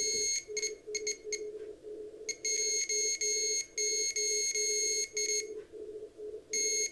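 A breadboard Morse-decoder circuit's buzzer beeping shrilly in long, ragged stretches over a low Morse tone that keys on and off about three times a second. The beeps do not follow the Morse keying: the decoder is not yet locking onto the CW signal.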